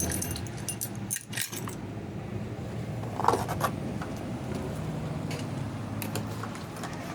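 Light metal clinks and jingles from chainsaw parts and hand tools being handled while the guide bar and chain are fitted. A cluster of clinks comes about a second in and another around three seconds in, with scattered ticks after that, over a faint low hum.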